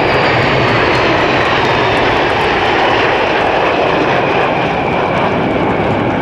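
A formation of Aermacchi MB-339 PAN jet trainers passing overhead: the steady rushing noise of their turbojets, with a high whine that slowly falls in pitch as they go by.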